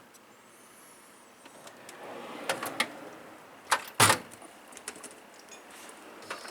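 Steel tool chest drawers sliding shut and open on their slides, with several metallic clicks and one sharp clunk about four seconds in as a drawer closes.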